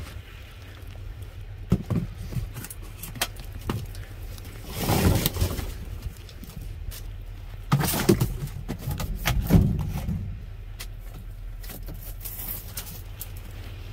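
Rummaging through a dumpster: cardboard produce boxes and plastic packaging being shifted, with scattered knocks and two longer stretches of loud rustling and scraping, over a steady low hum.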